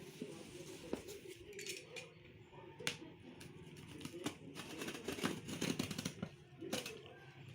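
Handling and unpacking sounds: scattered sharp clicks and knocks, with a denser patch of rustling and clatter a little past the middle.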